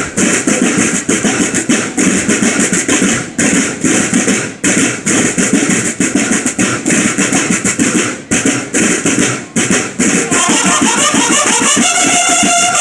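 Drum and bugle band: a row of snare drums playing a fast, dense marching cadence, with bugles joining in on held notes about ten seconds in.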